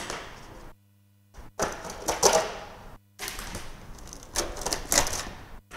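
Clear plastic bag wrapping around a large RC monster truck crinkling and rustling as the truck is handled, in irregular bursts with a few sharp clicks.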